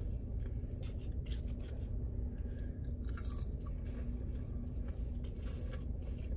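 A person chewing and biting French fries, with several short crunching bursts over a steady low hum.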